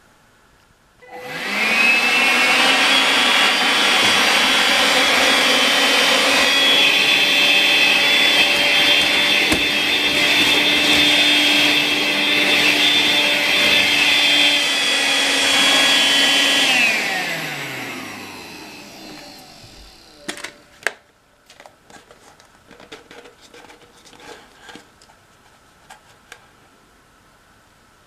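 Makita CL107FD 10.8 V cordless stick vacuum switched on about a second in, its motor whining up to speed and running steadily as it sucks up a clump of long hair from a wooden floor. It is switched off a few seconds past the middle and winds down with a falling whine, followed by light clicks and rustles as the machine is handled.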